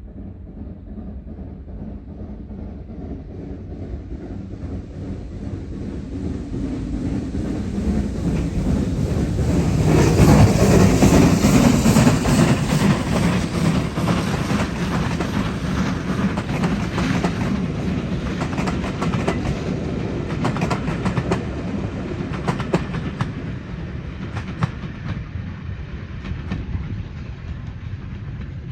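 Train approaching and passing close by, growing louder to a peak about ten seconds in, then a long run of wheel clicks over the rail joints as the carriages go by, dropping away at the end.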